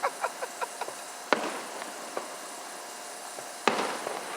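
Aerial fireworks bursting: a quick run of small pops in the first second, then a sharp bang about a second in and another near the end, each with a short rumbling tail.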